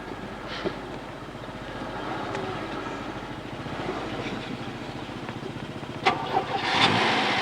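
A motor vehicle's engine running with a steady pulsing beat, labouring as the vehicle gets stuck. A louder burst of noise comes about six seconds in and lasts to the end.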